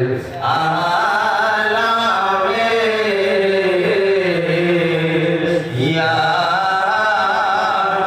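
A voice chanting zikr in long, slowly gliding phrases, with a brief break for breath near the start and another about six seconds in.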